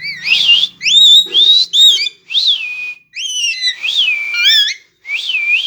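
Pet parrot giving a string of loud, shrill whistling calls, each gliding up and down in pitch, with short gaps between them.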